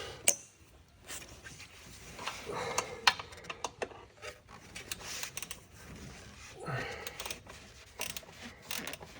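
Hand tools clinking and clicking against metal in a truck's engine bay: a scatter of irregular sharp knocks and ticks from sockets, an extension and a wrench working heat-shield fasteners loose, with some heavy breathing.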